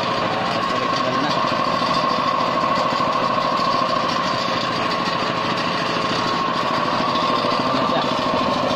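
Air compressor running steadily with a fast, even pulsing, its motor started through a timer relay that stands in for a failed centrifugal switch.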